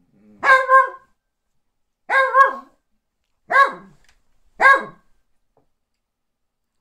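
Long-haired dachshund barking: four short, high-pitched barks over about four and a half seconds, the first two each a quick double.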